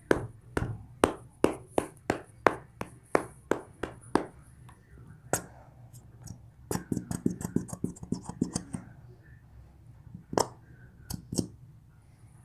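A plastic glitter-glue bottle being knocked and shaken to get the last glue out: a run of sharp clicks about two and a half a second, then a quicker patter of clicks, then a few single ones near the end.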